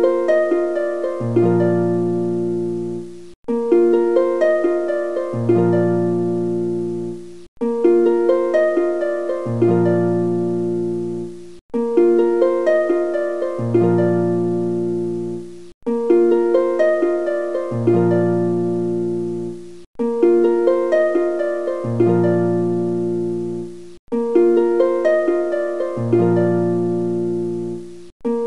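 Background music: a short phrase of plucked notes over a low bass note, looped over and over about every four seconds with a brief break between repeats.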